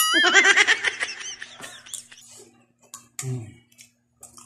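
A high, squeaky, warbling sound effect that starts abruptly and fades after about a second, with its pitch wobbling up and down. About three seconds in comes a short low hum of a man's voice.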